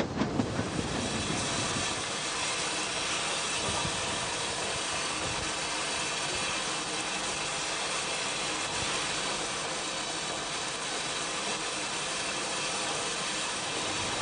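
Steam hissing steadily from Caledonian Railway No. 123, a 4-2-2 single-driver steam locomotive, standing in steam; a brief rhythmic clatter at the very start.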